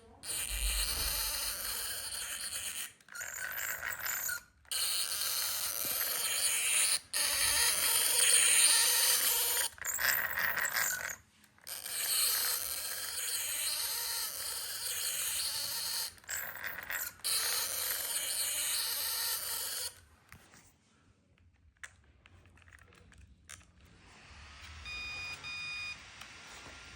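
The drivetrain and motor of a WLtoys 124017 RC car are running under throttle in long bursts, making a loud, noisy whirr broken by several short pauses. After about twenty seconds the noise stops. This is the unwanted noise the owner is showing as a fault.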